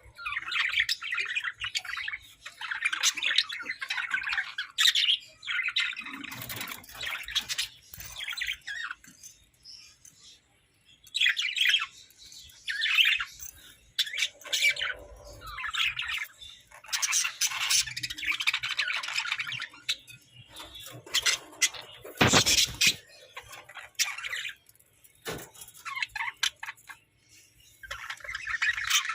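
Budgerigars chattering and warbling in bursts, with squawks mixed in and a loud sharp burst about two-thirds of the way through.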